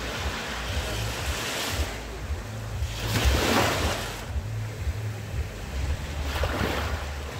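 Small waves breaking and washing up a sandy beach, three surges of hiss, the loudest about three seconds in. Wind rumbles on the microphone underneath.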